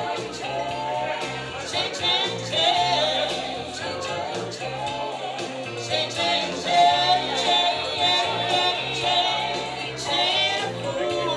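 A woman singing live into a handheld microphone, holding long notes with a wavering vibrato, over backing music with a bass line and a steady drum beat.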